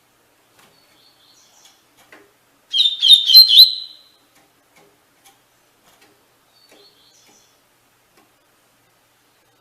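A seedeater (coleiro-type Sporophila) singing one short 'tui-tui' song phrase of quick, repeated high notes about three seconds in, with faint scattered ticks and soft high notes around it.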